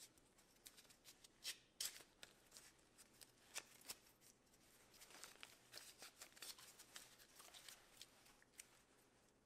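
Faint, scattered crackles and clicks of blue painter's tape being torn and pressed around a small wooden piece, busier in the second half.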